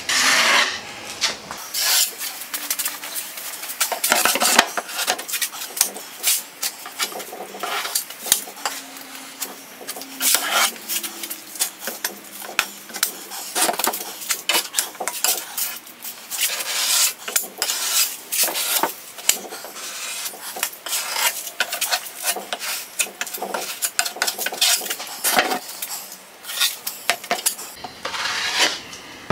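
Plastic spreader scraping across wet epoxy fairing compound in quick, irregular repeated strokes as a skim coat is spread over a plywood boat bow.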